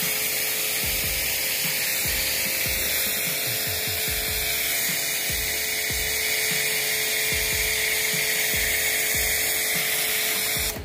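Aimex D7 1800-watt electric pressure washer running steadily, its pump motor humming under the hiss of the foam lance spraying foam onto a car. The sound cuts off suddenly near the end.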